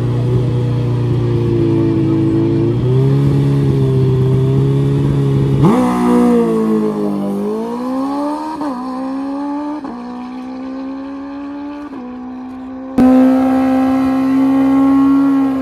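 Sport motorcycle held at high revs on a drag strip's starting line, launching about six seconds in. It accelerates away through several quick upshifts, the pitch climbing and dropping with each gear, and fades into the distance. Near the end a sudden switch to a Suzuki GSX-R1000's inline-four held loud and steady at high revs.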